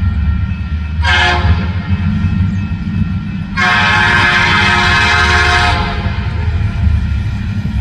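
Freight train's diesel locomotives rumbling steadily while a Nathan P5 air horn sounds a chord: a short blast about a second in, then a longer blast of about two seconds from about three and a half seconds in.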